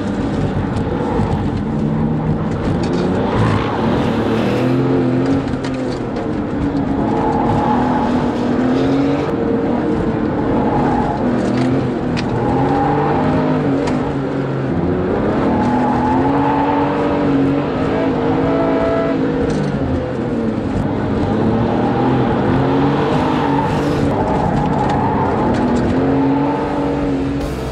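Tuned Porsche 996 Turbo's twin-turbo flat-six being driven hard on a track, its revs climbing and dropping again every few seconds. It is heard first from trackside as the car passes, then from inside the cabin.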